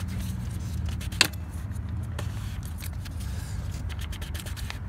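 Plastic fuel filter cap being screwed down by hand onto a 7.3L Powerstroke fuel filter housing: light scraping, with one sharp click about a second in and a couple of fainter clicks later. A steady low hum sits underneath.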